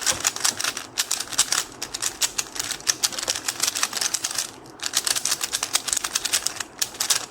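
QiYi Sail 3x3 plastic speed cube being turned quickly by hand: a fast, continuous clatter of layer clicks with a short break about four and a half seconds in, then again until near the end.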